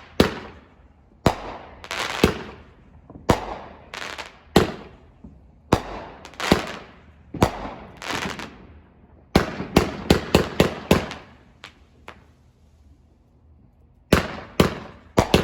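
Aerial fireworks bursting in a finale: a string of sharp bangs, each trailing off, coming thick and fast around the middle, then a short lull and a rapid volley near the end.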